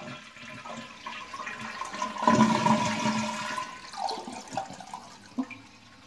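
Toilet flushing with the handle held down and the water supply shut off, so the tank empties into the bowl without refilling. The rush of water swells about two seconds in and dies away toward the end.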